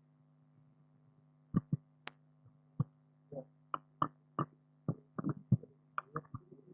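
A steady low electrical hum, with a run of irregular sharp knocks and taps starting about a second and a half in and coming faster toward the end.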